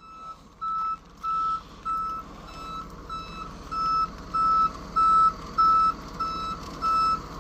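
Reversing alarm of a vehicle backing up, beeping steadily at a little under two beeps a second over a low engine rumble; the beeps grow louder about halfway through.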